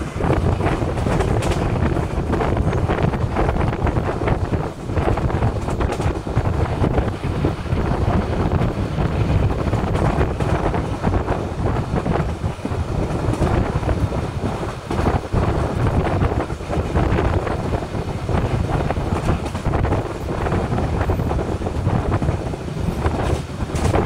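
Wind buffeting the microphone held out of a moving passenger train, over the steady rumble of the coaches running along the track. The wind noise comes and goes in gusts.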